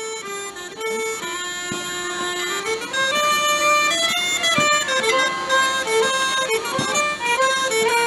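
Northumbrian smallpipes and a fiddle playing a traditional tune together, a melody of held, reedy notes over the bowed violin.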